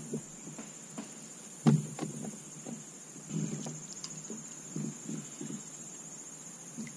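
Scattered knocks and bumps on a plastic kayak while a just-caught bluegill and the tackle are handled, the loudest about two seconds in. A steady high insect drone runs underneath.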